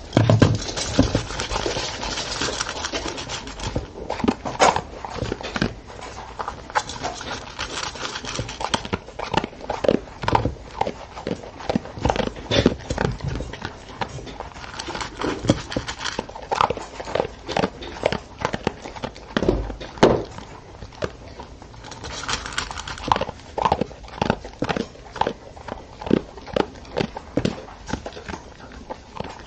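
Old English Sheepdog eating dry kibble from a stainless steel bowl: irregular crunching and chewing, with kibble and muzzle clinking against the metal. The bowl is set down on its stand at the very start.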